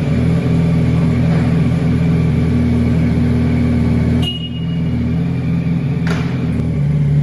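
2006 Yamaha R1's inline-four engine idling steadily through an aftermarket exhaust, dropping a little in level about four seconds in.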